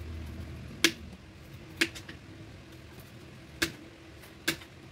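Kitchen knife peeling an unripe green mango held in the hand: four sharp clicks of the blade, about a second apart.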